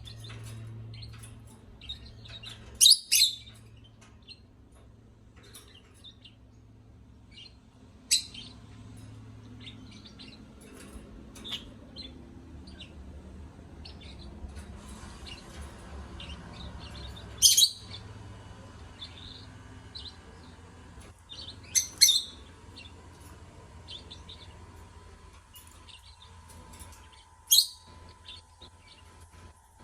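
Lovebirds chirping: a steady run of soft, high chirps, with a loud, sharp chirp or quick pair of chirps standing out every few seconds, five times in all.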